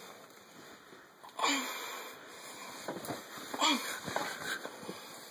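Boy in a chokehold wheezing and breathing hard, with short strained vocal sounds. The first breath comes about a second and a half in, and more follow from about three seconds in.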